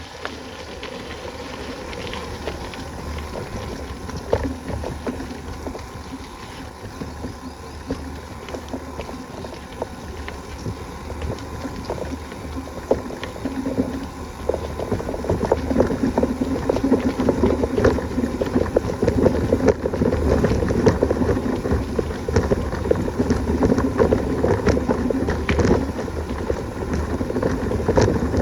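Wind buffeting the microphone with a deep rumble, and a constant rattle of many small knocks, as from a bicycle ridden over a rough dirt track. It grows louder about halfway through.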